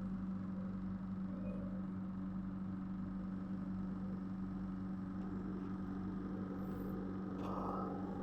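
A running machine giving a steady, unchanging hum at one low pitch.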